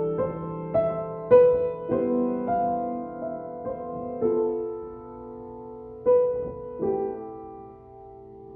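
Slow, improvised piano playing: soft notes and chords struck every half second to a second, held so that they ring into one another. Near the end a last chord is left to fade.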